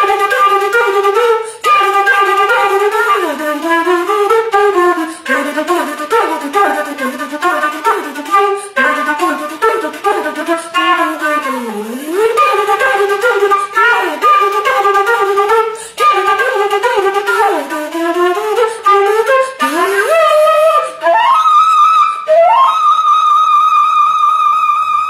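Concert flute played solo: fast, rhythmic runs of short notes with occasional slides in pitch, then rising glides about twenty seconds in into a long high note held with a slight wobble near the end.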